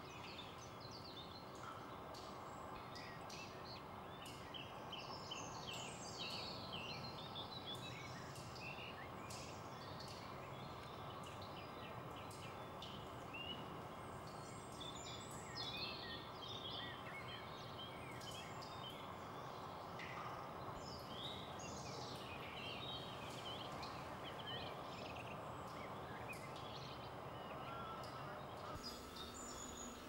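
Small garden birds chirping, many short calls in quick succession, over a faint steady background noise.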